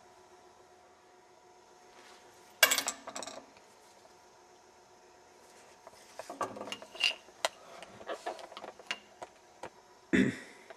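Small metal parts clinking and knocking as a cut-open padlock is handled: one sharp clank about two and a half seconds in, a run of light clicks and rattles later on, and another knock near the end.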